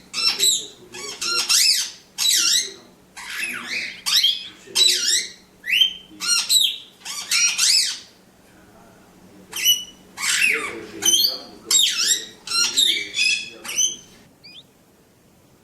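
A parrot calling over and over in short, loud, harsh calls, one or two a second. There is a pause of about a second and a half near the middle, and the calls stop about a second and a half before the end.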